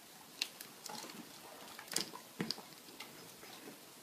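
A few faint, sharp clicks and ticks from the dogs moving on a tile floor, with long quiet gaps between them.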